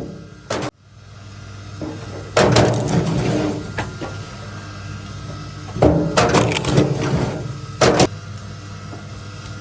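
Log splitter at work: wood cracking and splitting in several loud bursts, about two and a half, six and eight seconds in, over the machine's steady low hum.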